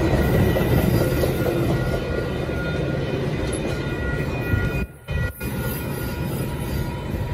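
Metra bilevel gallery passenger cars passing over a street grade crossing: a steady, loud rumble of wheels on the rails. The sound drops out for a moment about five seconds in.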